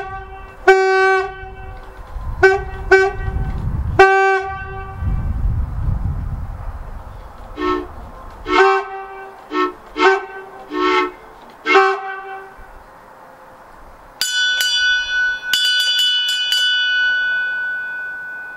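A boat's roof-mounted air horn sounded in about ten short blasts in two bursts, then a higher-pitched boat whistle blown in a few quick toots and a held note that fades out near the end.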